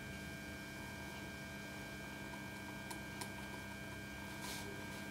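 Steady low electrical hum of room tone, with two faint ticks about three seconds in and a brief soft rustle near the end.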